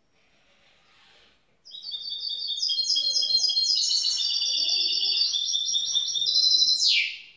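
Young goldfinch × canary mule singing a fast, continuous run of rapidly repeated high notes for about five and a half seconds, ending with a quick downward sweep.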